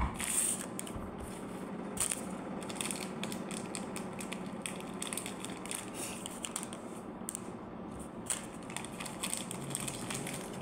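Crisp biscuits being snapped and broken apart by hand, a continual run of small crunching cracks, over a faint steady hum.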